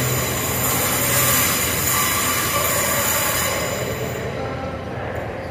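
TransPennine Express Hitachi Class 802 train running out around a curve, its wheels squealing on the rails over a steady rumble. The sound fades from about four seconds in as the train pulls away.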